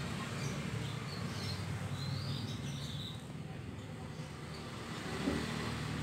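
A steady low hum, like distant traffic or machinery, with a few faint high bird chirps in the first half.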